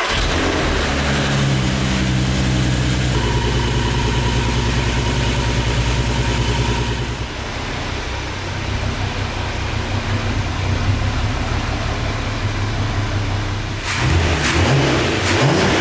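Volkswagen Passat R36's 3.6-litre VR6 engine just after a cold start from two months standing, running at a raised cold idle that steps down and settles over the first several seconds. About fourteen seconds in, it is revved in a few quick blips.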